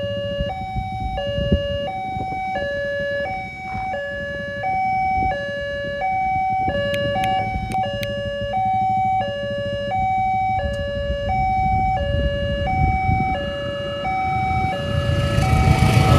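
Electronic railway level-crossing warning siren sounding a steady two-tone hi-lo wail, switching pitch about every 0.7 s, to warn that a train is coming. Near the end the rumble of an approaching locomotive-hauled train rises beneath it.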